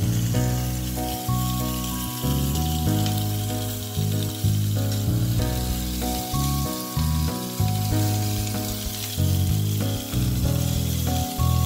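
Lamb chops sizzling and frying in a hot grill pan, a steady hiss heard under louder background music made of sustained notes that step from one to the next.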